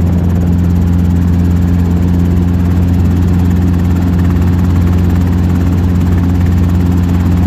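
Helicopter in flight heard from inside the cabin: the engine and rotor make a loud, steady low drone with no change in pitch.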